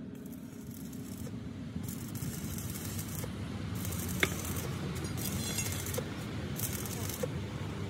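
Steel-tank fabrication workshop noise: a steady low rumble with repeated bursts of hissing, each about a second long, and one sharp metallic clink about four seconds in.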